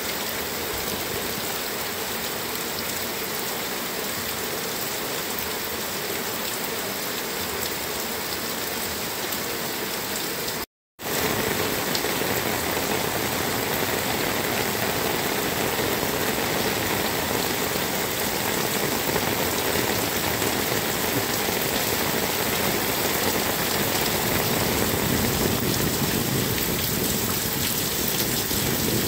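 Heavy downpour drumming steadily on clay roof tiles and splashing on the wet ground, a dense even hiss. The sound cuts out for a moment about eleven seconds in, then resumes a little louder and fuller.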